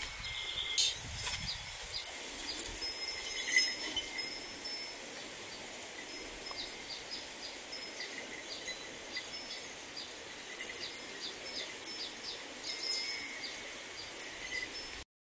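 Countryside ambience of small birds chirping over a steady hiss. A quick run of short, high chirps comes at about three a second from around six seconds in. The sound cuts off abruptly just before the end.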